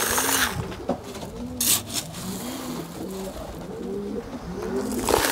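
Domestic pigeons cooing, one low arched coo after another with several overlapping, broken by a few brief sharp noises, the loudest just under two seconds in.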